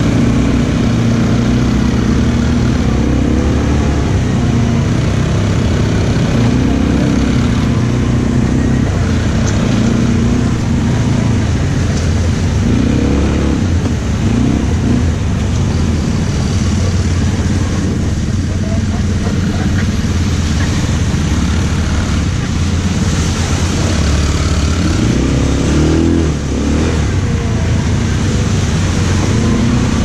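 ATV engine running as the quad is ridden. The engine pitch rises and falls several times as the throttle is opened and eased off.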